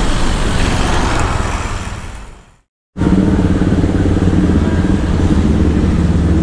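Honda motor scooter engine idling steadily. The sound fades out around two and a half seconds in, drops out completely for a moment, then returns at the same steady idle.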